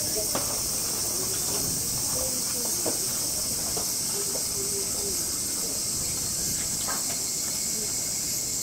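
Steady high-pitched insect chorus droning without a break, with faint voices underneath.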